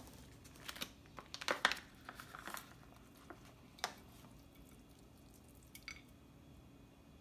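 Plastic-lined juice pouch crinkling as hands pull it open: a run of quick crackles in the first few seconds, then a couple of single crackles.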